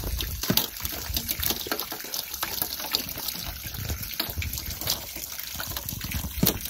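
Water pouring from the spout of a sheet-metal drainpipe and splashing into a shallow muddy puddle: a steady run of water with many small splats.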